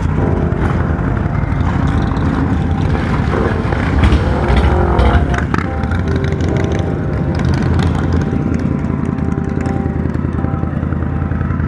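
Several big V-twin touring and cruiser motorcycles pulling away slowly one after another, a deep, steady engine rumble that swells about four to five seconds in as a bike passes close.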